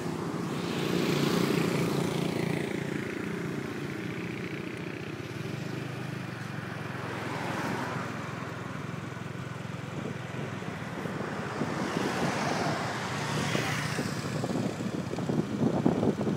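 Motor scooter engine running steadily while riding along a road, under road and wind noise. Passing cars swell up and fade about three times, and wind starts buffeting the microphone near the end.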